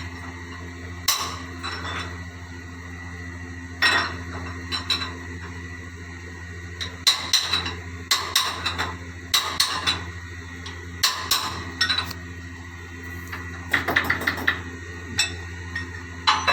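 Metal hand tools and engine parts knocking and clinking together at irregular intervals, some in quick runs and a short rapid rattle near the end, during assembly work on a Yanmar 6KFL marine diesel engine. A steady low hum runs underneath.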